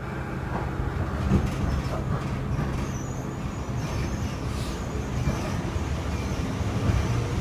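Steady low hum inside a Kintetsu 1000 series electric train car standing at a station, with a few faint clicks and no motor whine.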